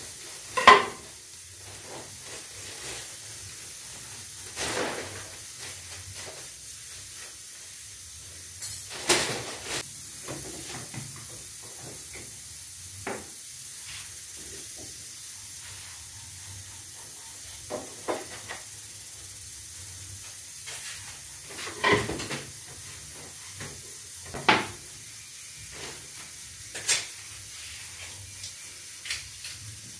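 Scattered sharp knocks and clatters of a knife, cutting board and utensils on a kitchen counter as it is cleared, over a faint steady hiss of pots steaming on the stove.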